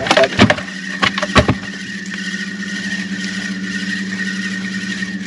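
Steady engine hum holding one even pitch, with several sharp knocks in the first second and a half.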